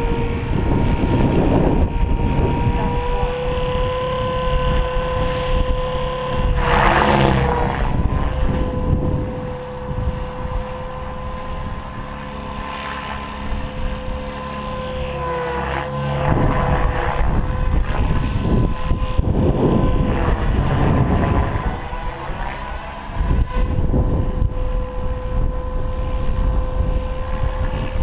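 Electric Goblin 700 RC helicopter in flight: a steady whine from motor and rotors holding a near-constant pitch, dipping briefly twice. Wind buffets the microphone, with several swells of rushing noise.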